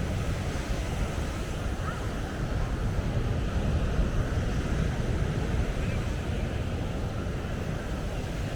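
Ocean surf washing onto the beach, with wind rumbling on the microphone and faint voices of people around.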